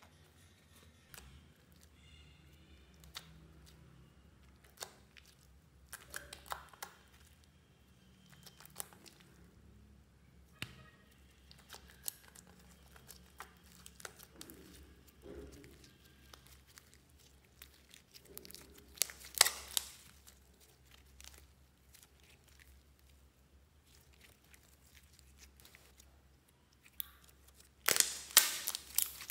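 Slime with liquid makeup mixed in being kneaded and squeezed by hand: irregular sticky clicks, crackles and small pops. Louder runs of pops come about two-thirds through and again near the end.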